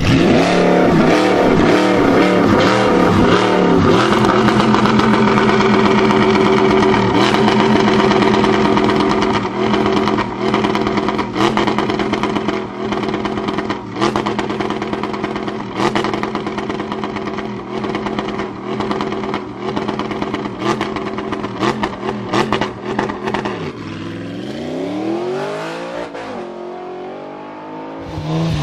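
First-generation Audi R8 engine revving while stationary: the revs swing up and down at first, then are held steady for a long stretch with frequent sharp exhaust pops. Near the end the revs drop and it gives two short blips.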